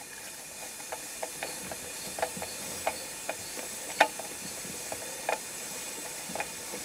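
Steady hiss of compressed air flowing through a cylinder leakdown tester into one cylinder of a GM 5.0L (305) Mercruiser V8 as the regulator is dialed up and the gauges climb, with a scatter of light clicks as the regulator knob is turned.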